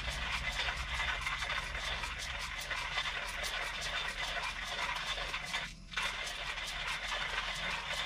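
Steady drone of a Scania truck's engine and road noise heard inside the cab while driving, with a brief dip in level about six seconds in.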